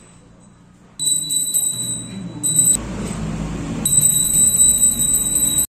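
Small brass puja hand bell rung rapidly and continuously, a high ringing restruck several times a second, starting about a second in. It breaks off for about a second near the middle, where a low dull noise takes its place, then rings on.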